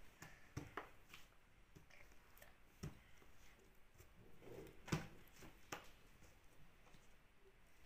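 Near silence: room tone with a handful of faint, brief clicks and taps from slime and small containers being handled on a tabletop, the clearest about five seconds in.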